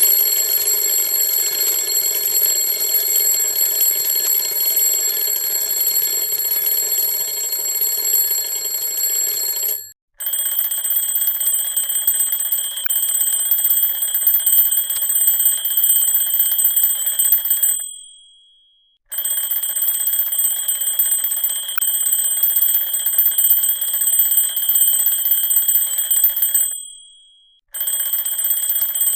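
Alarm clock ringing continuously. About ten seconds in it cuts to a different alarm clock ring, higher and thinner. This one rings for about eight seconds, dies away briefly, then starts again, twice.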